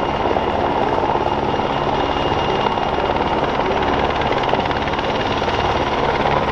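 PZL W-3 Sokol twin-turbine helicopter hovering, its rotor beating in a steady, fast rhythm, with a thin steady whine above it.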